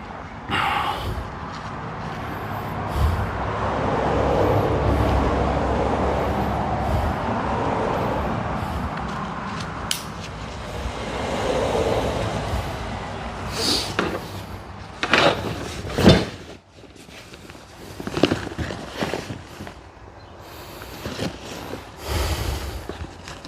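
Rustling and scraping of a canvas bag and straps being handled and packed, then several sharp clicks and knocks in the second half.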